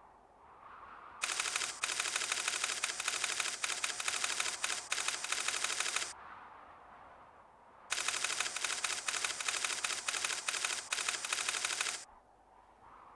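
Rapid, even clatter of typewriter-like keystrokes, a text-printing sound effect, in two long runs: from about a second in to about six seconds, and again from about eight to twelve seconds, with quiet between.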